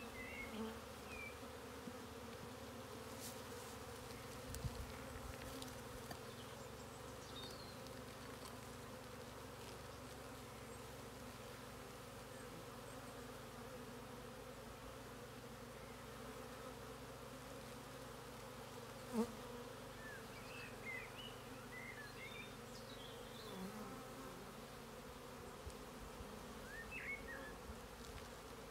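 Honeybees buzzing in a steady hum from an open hive as frames of comb covered in bees are lifted out. A sharp click comes about two-thirds of the way through, and there are a few short high chirps.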